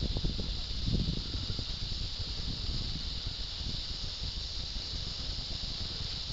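A steady high hiss, with irregular low rumbles and knocks of movement and handling at the microphone, heaviest in the first couple of seconds.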